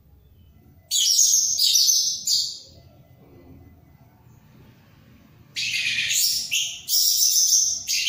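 Orange-headed thrush (anis merah) in full song, singing loud, rapid, high-pitched phrases. One burst comes about a second in and lasts nearly two seconds. Another starts past the halfway point and runs on to the end.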